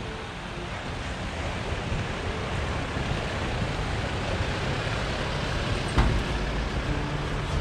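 A Toyota Land Cruiser Prado towing a Jayco caravan drives past on a gravel road: engine and tyre noise on the gravel, growing louder as the rig comes near, with a single sharp knock about six seconds in.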